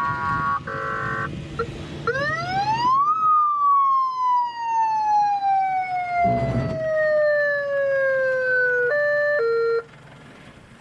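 A siren-like electronic tone: a few short honking blasts, then a wail that rises for about a second and falls slowly for about six seconds, ending in two short lower tones and cutting off suddenly. A low engine rumble runs under the first three seconds.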